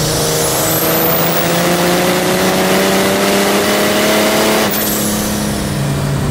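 Big-turbo Mercedes OM606 straight-six diesel in a BMW E28 pulling hard under full throttle, its note climbing steadily to the top of the revs. About four and a half seconds in, the pitch drops suddenly.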